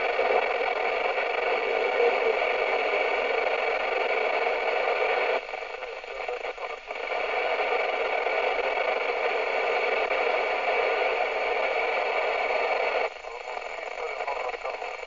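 Hiss and static from an FM radio receiver on the 27 MHz band, heard between transmissions with no voice on the channel. The hiss dips for a moment about five seconds in, and again becomes quieter near the end.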